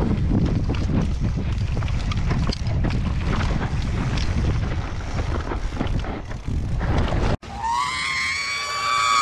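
Mountain bike descending a rough trail: wind buffeting the microphone over a constant clatter of tyres and suspension on roots and rocks. After an abrupt cut near the end, a person gives one long high-pitched scream.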